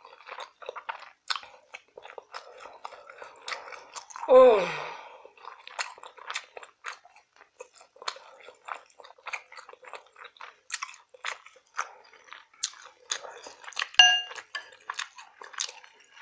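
Close-miked wet chewing and lip-smacking of rotisserie chicken, a steady run of small mouth clicks. About four seconds in, a short voiced sound slides down in pitch, the loudest moment; near the end, a brief ringing clink.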